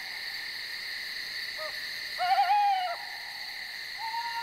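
Owl calls over a steady night insect chorus: a short call about one and a half seconds in, a louder wavering call just after two seconds, and another call starting near the end.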